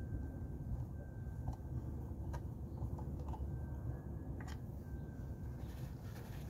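A few faint, scattered clicks as the top drain plug is threaded by hand into a Yamaha 115 outboard's lower-unit gear case, over a steady low rumble.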